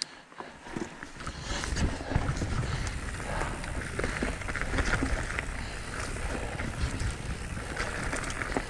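Mountain bike rolling along a dirt forest trail: tyre noise on dirt and leaves with small rattles and clicks from the bike over a low rumble. Quiet for about the first second, then steady.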